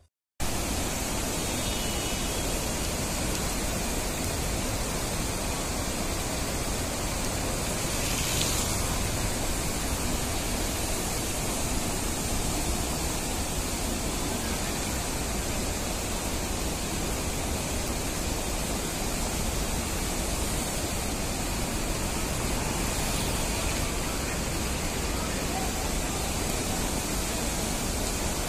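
Muddy floodwater of a mountain stream in spate after heavy monsoon rain, rushing past in a steady, even roar of water noise.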